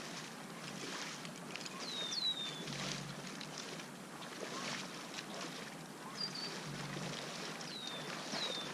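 Thin bird whistles sliding down in pitch, a pair about two seconds in and another pair near the end, with a short warble between, over a steady outdoor hiss and soft rustling.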